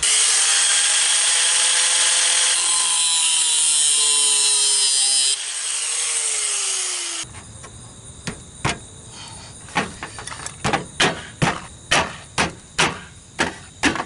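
Cordless angle grinder with a cutting wheel cutting through a protruding screw: a loud grinding hiss over the motor's whine for about five seconds. The cutting then stops and the motor runs free and winds down before the sound cuts off. A string of sharp clicks, about two a second, follows.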